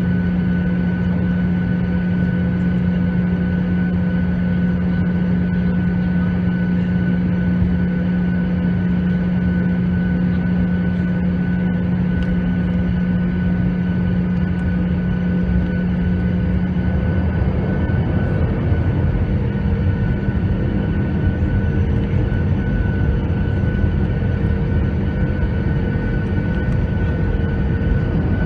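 Jet airliner engines and cabin noise heard from inside the passenger cabin during taxi onto the runway. A steady low hum with a few constant tones, joined about two-thirds of the way through by a growing low rumble.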